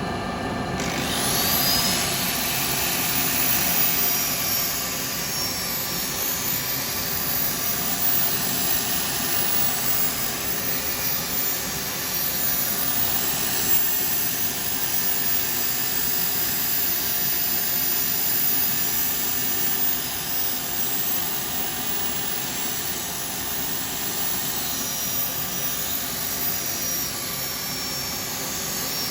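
Wood lathe spinning an oak bowl while it is sanded with 320-grit abrasive: a steady whirring hiss of motor and paper on wood. A high whine rises about a second in as something spins up.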